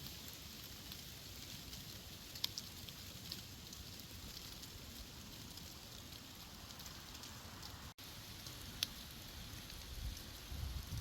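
Wind rustling dry autumn leaves in a forest, a steady hiss with scattered light ticks. A low rumble grows near the end.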